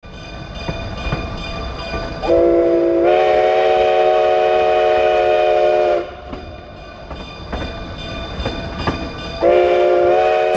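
Steam locomotive whistle sounding a chord of several tones in two blasts: one of about four seconds starting a couple of seconds in, its pitch stepping up slightly as it opens fully, and a second starting near the end. The train's running rumble and clicks are underneath.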